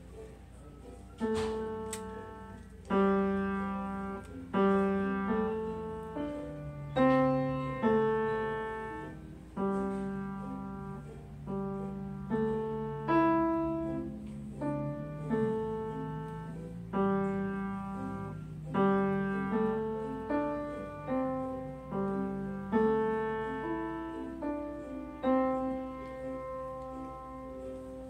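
Upright piano played slowly, a simple piece of notes and chords struck about every one to two seconds and left to ring out, ending on a longer held chord near the end.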